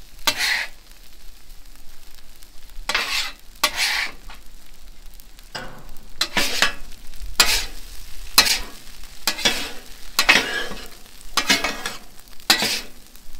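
Steel griddle scraper and spatula scraping across a flat-top griddle, turning and mixing fried rice in a dozen or so short strokes at uneven intervals, with sizzling from the rice on the hot steel.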